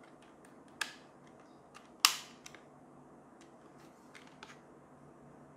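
Plastic mounting clip for a T5 LED light bar being handled and snapped into place: a sharp click about a second in, a louder snap about two seconds in, then a few faint ticks.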